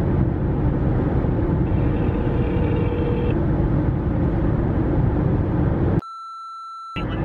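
Steady low rumble of car and road noise heard inside the car's cabin. About six seconds in, the rumble cuts out abruptly for about a second, and a single steady electronic beep sounds in its place.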